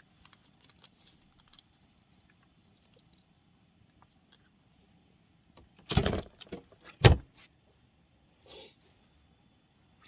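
Small handling clicks, then a loud scraping rush about six seconds in, followed a second later by a single sharp knock and a fainter short rustle near the end.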